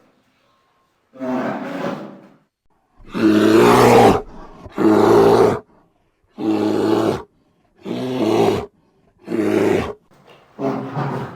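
Bear roaring in a series of about seven separate roars, each about a second long, with short gaps between; the loudest come back to back from about three to six seconds in.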